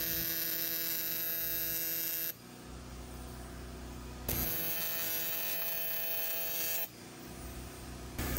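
AC TIG welding arc on aluminum buzzing steadily during tack welds. The arc runs about two seconds and stops, strikes again about four seconds in for another two and a half seconds, and strikes once more near the end.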